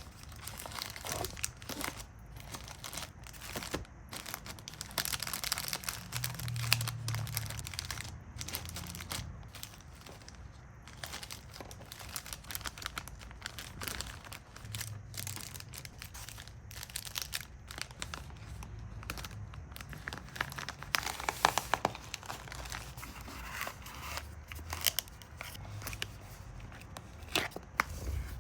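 Packaging being handled while an order is packed: steady crinkling and rustling with many light, irregular clicks and taps.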